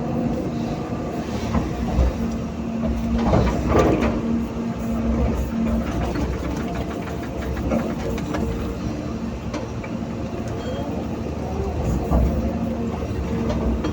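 Heavy diesel excavator working: a steady engine rumble with a hydraulic whine that comes and goes, a louder surge of scraping about three and a half seconds in, and scattered clicks.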